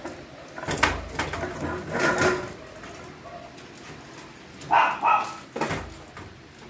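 Poodle puppies scrabbling and bumping about on the plastic slatted floor of their cage, with scattered knocks and rustling. Two short yaps come close together about five seconds in, followed by a thump.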